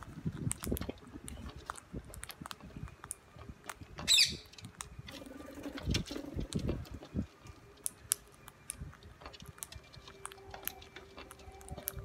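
Rose-ringed parakeets cracking and nibbling seeds, a scatter of small clicks and crunches, with one loud, harsh squawk about four seconds in.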